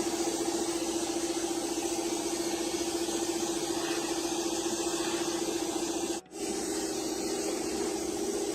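Steady drone of a running electric machine: a constant hum with a hiss over it, broken off briefly about six seconds in, then resuming the same.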